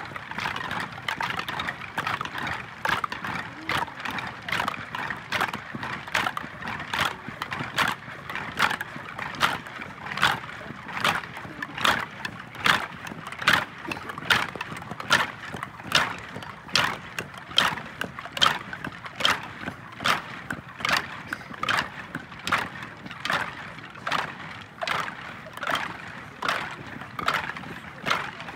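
A large uniformed formation keeping a steady beat in unison: sharp knocks a little more than once a second, over the murmur of a crowd.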